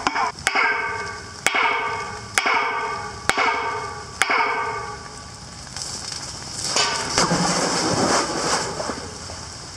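Five sharp hits at the mouth of a deep concrete-lined well, about one a second, each followed by a ringing echo that rings down the shaft. Then a longer rushing swell with a falling sweep.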